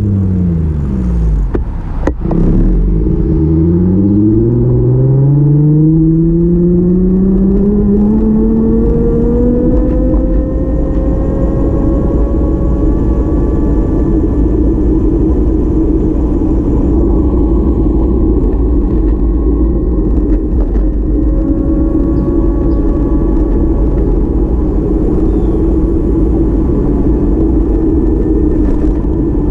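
A car slowing, then accelerating, its engine pitch falling, then rising for several seconds and levelling off at a steady cruise, over constant road rumble.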